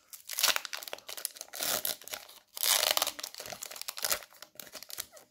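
Foil Pokémon GO booster pack wrapper torn open by hand and crinkled, in several short rips and rustles, the loudest about two and a half to three seconds in.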